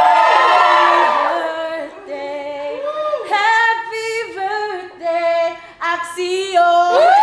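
A woman singing unaccompanied, holding notes and sliding between pitches, and sliding up into a long held note near the end.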